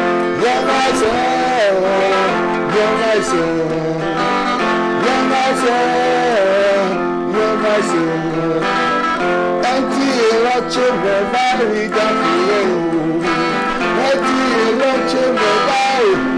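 A man singing a song live, accompanying himself on guitar.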